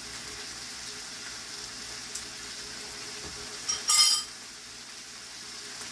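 Food sizzling steadily in a frying pan, with one loud, ringing clink of a metal utensil or dish about four seconds in.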